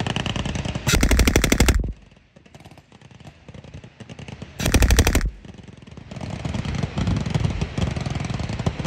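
Blank-firing machine guns in a mock battle: two loud bursts of rapid fire, about a second in and again just under five seconds in, each lasting under a second, with lighter rapid firing around them and steadier firing building up from about six and a half seconds.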